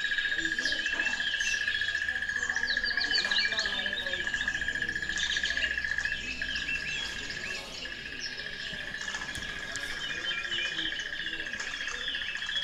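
Birds chirping in many short calls over a steady, high insect trill, which breaks off for a second or so midway and then resumes.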